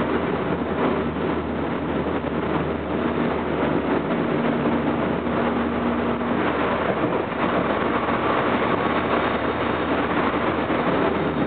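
Running noise inside a Tokyo Metro 07 series electric train, a VVVF-inverter EMU: a steady rumble of wheels on rail and car body noise as it travels along the line. Faint steady whining tones come and go in the middle.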